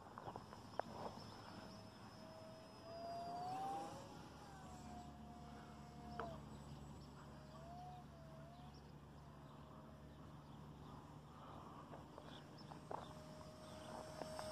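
Faint buzz of a small RC foam plane's brushless electric motor (Racerstar 2508) and 6-inch three-bladed propeller in flight. Its pitch rises and falls as the throttle and distance change, with a few sharp clicks.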